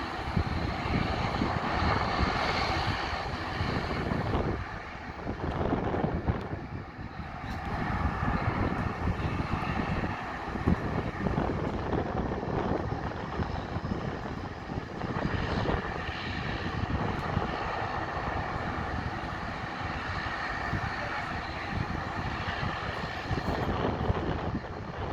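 A Bombardier Dash 8 Q400's twin Pratt & Whitney PW150A turboprop engines and propellers running at takeoff power: a loud, steady engine and propeller drone with a faint held tone in it.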